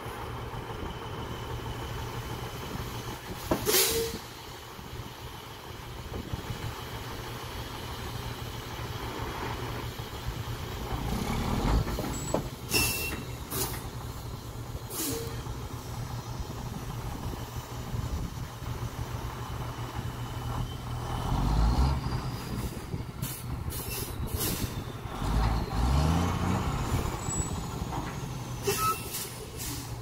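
Diesel engines running steadily while a dump trailer tips silage onto a pile. There are several sharp knocks, and an engine revs up with a rising pitch about twenty-five seconds in.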